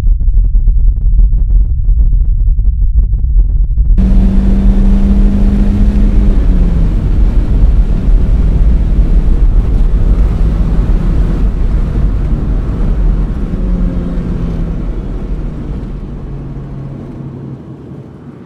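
Deep, loud rumble. About four seconds in a loud noisy roar joins it, carrying a few held low tones that slide down in pitch, and the whole sound fades away toward the end.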